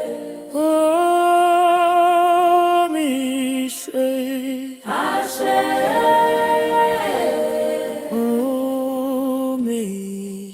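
Wordless a cappella singing: several layered voices in harmony hold long notes with vibrato, sliding from one pitch to the next in phrases of a few seconds.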